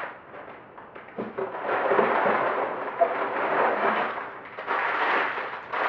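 Plastic bags of Lego pieces crinkling and rustling as they are handled. The crackling starts about a second in and keeps on steadily.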